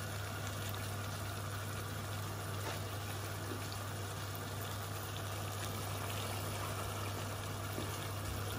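Tomato sauce simmering in a stainless steel pot on the stove: a steady bubbling hiss over a low steady hum.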